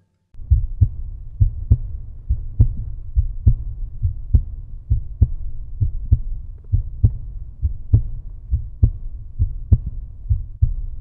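Outro music, muffled and bass-heavy: a steady beat of low thumps, about two to three a second.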